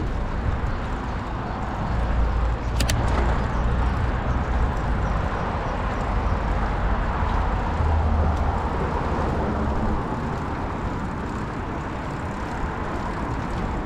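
Road traffic passing steadily, a low rumble that swells twice as vehicles go by, with a brief click about three seconds in.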